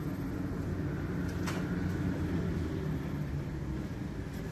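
Steady low rumble of a taxiing narrow-body jet airliner's engines across the apron, with one brief click about a second and a half in.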